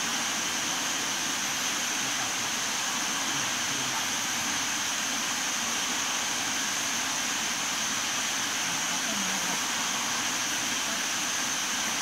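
Steady outdoor background noise: an even hiss with a constant high-pitched whine on top, without breaks or distinct events.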